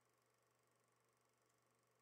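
Near silence: only a faint, steady low hum and hiss, with nothing else heard.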